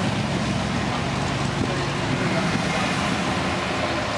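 Classic cars driving slowly past at low speed, their engines running steadily.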